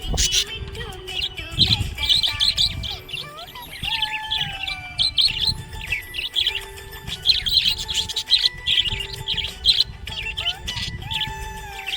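Budgerigars chirping in quick clusters of short high chirps, mixed with a few sliding whistles, over background music with long held notes.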